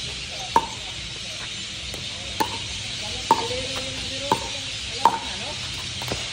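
Pickleball paddles striking a plastic pickleball in a rally: five sharp pops about a second apart. A steady high hiss, likely insects, runs behind them.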